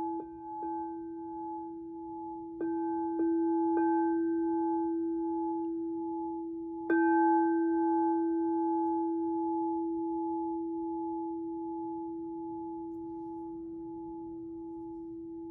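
Singing bowl ringing with a steady low hum and a few higher overtones. It is struck again several times, most strongly about seven seconds in, and then fades slowly.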